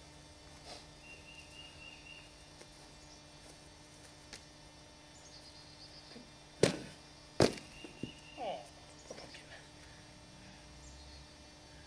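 Two sharp knocks about three-quarters of a second apart, from a pumpkin being handled and knocked against the top of a wooden target post, followed by a few lighter knocks.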